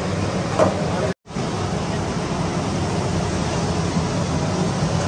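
Steady background din of a busy fried-fish eatery, an even low rumble and hiss with no single clear source. It cuts out for a moment about a second in.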